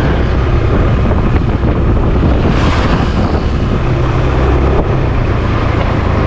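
Wind buffeting the microphone of a moving motor scooter, over the scooter's steady low engine hum. There is a brief louder rush about two and a half seconds in.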